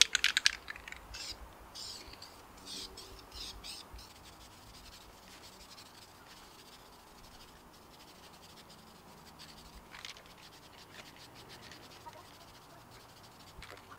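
Rattle-can spray paint: the mixing ball clicking rapidly as the can is shaken, stopping within the first half-second, then a few brief faint hisses of spraying over the next few seconds. After that only a faint background.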